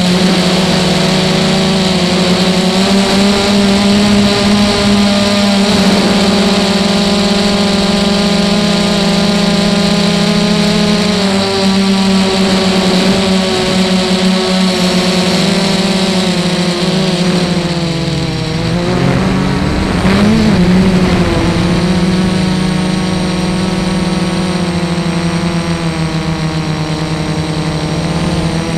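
Electric motors and propellers of an Armattan REV2 Tilt FPV multirotor, whining steadily as heard from its onboard camera. The pitch shifts with the throttle, and about two-thirds of the way through it dips low and then climbs back.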